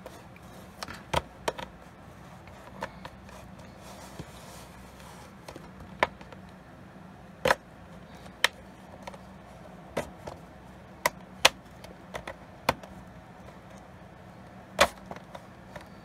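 Sharp plastic clicks and snaps at irregular intervals, about a dozen, as the bottom cover of an Asus VivoBook X510UQ laptop is pried off with a credit card and its retaining clips pop loose.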